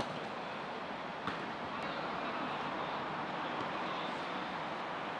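Steady outdoor background noise, with a sharp knock at the start and a fainter one about a second later.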